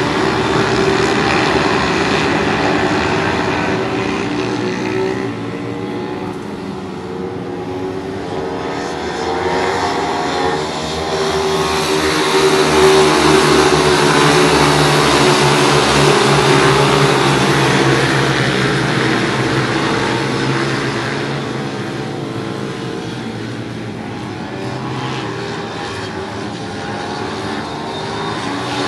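Several pit bike engines running together in a race, their pitch rising and falling with throttle. The sound swells louder in the middle and eases off later.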